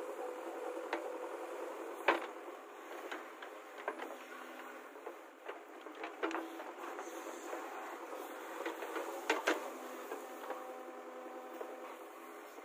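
JCB 3DX backhoe loader's diesel engine running steadily while the backhoe digs, with scattered sharp knocks and clunks from the arm and bucket, the loudest about two seconds in and a pair about nine seconds in.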